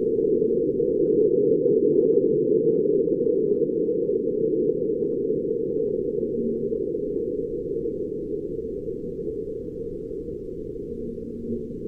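Seismometer data of a marsquake, from NASA's InSight lander, converted into audio: a low rushing rumble that swells over the first two seconds and then slowly fades, with faint crackles above it.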